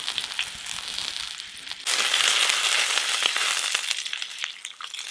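Sliced potatoes and onion frying in hot lard, a crackling sizzle that suddenly flares up loud about two seconds in and then dies back down.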